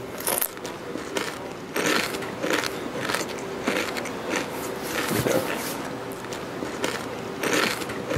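Crunchy tortilla chips being bitten and chewed: irregular crisp crunches, several in a row, loud enough to be called "really loud".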